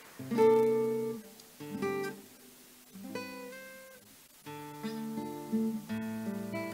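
Solo acoustic guitar playing a slow introduction. Chords are strummed and left to ring, at first a second or so apart and then closer together in the second half.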